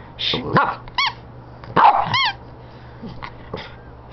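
Small shih tzu barking in short yaps, with two high whines that rise and fall in pitch about a second and two seconds in: a dog begging for food.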